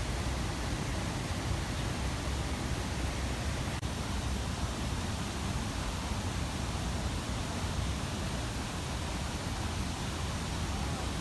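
Artificial waterfall: water pouring steadily in an even, unbroken rush, with a split-second dropout about four seconds in.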